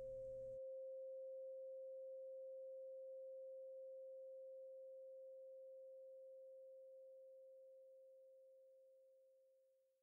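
A steady pure tone at 528 Hz, the Solfeggio healing frequency, with no harmonics. It slowly fades out to silence.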